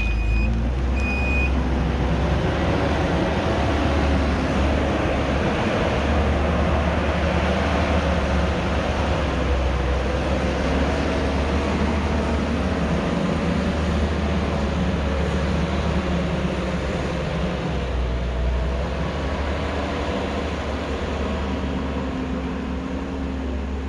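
Kubota SVL90-2 skid steer's diesel engine running under load, its pitch rising and falling as it works. A backup alarm beeps a couple of times at the start.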